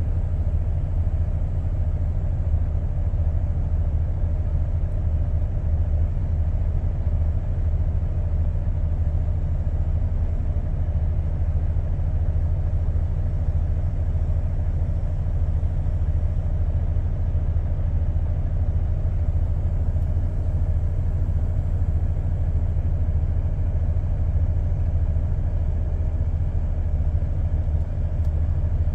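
Vehicle engine idling, a steady low rumble heard from inside the cab, with no change in speed.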